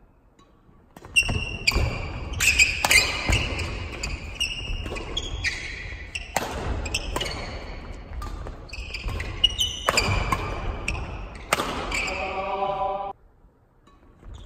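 Badminton doubles rally: shuttlecock struck sharply by rackets again and again, with shoes squeaking on the wooden court floor. It starts about a second in and stops abruptly about thirteen seconds in when the point ends.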